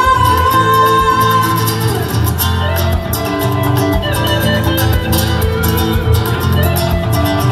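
Acoustic guitar and electric guitar playing an instrumental passage together live through a PA, with a steady strummed rhythm under held and picked notes.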